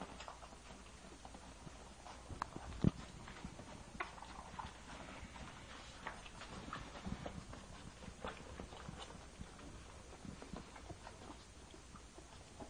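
26-day-old puppies suckling at their mother: faint, irregular wet clicks and smacking sounds, with one louder thump about three seconds in.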